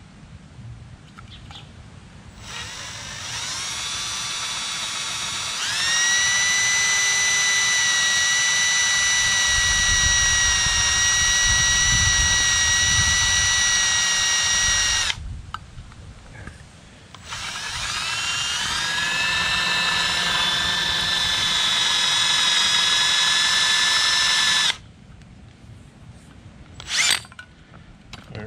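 Cordless drill boring into an aluminium automatic-transmission valve body through a shift kit's drill guide: a steady motor whine that steps up in speed twice over the first few seconds, runs about twelve seconds, stops, then runs again for about seven seconds.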